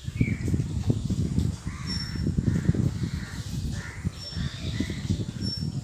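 Whiteboard duster scrubbing the board in quick back-and-forth strokes as the writing is wiped off, with repeated bird calls behind it from about two seconds in.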